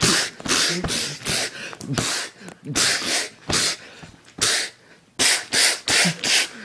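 Mouth-made fight sound effects: a rapid string of short hissing, huffing bursts, some with brief grunts, voicing punches in a hand-puppet fight.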